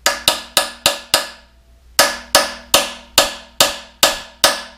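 Hammer tapping a steel drift punch to drive a new needle bearing into a cast-iron engine block. Quick ringing taps come about three a second, five of them, then a short pause, then eight more.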